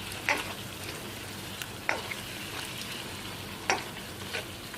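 Beef liver with garlic and spices sizzling steadily in a frying pan while a utensil stirs it, knocking sharply against the pan three times.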